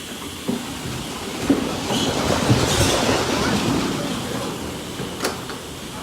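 A pen of weaned nursery pigs jumping up and scrambling in a noisy commotion, disturbed by someone walking in. It builds to a peak about halfway through and then eases, with a few sharp knocks.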